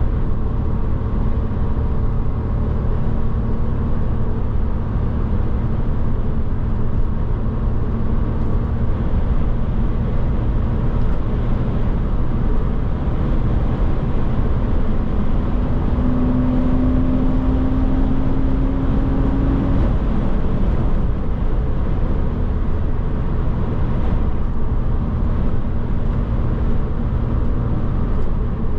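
Porsche Boxster engine running steadily at cruising speed, with tyre and road noise, heard from inside the cabin. About halfway through, an engine tone rises gently for a few seconds.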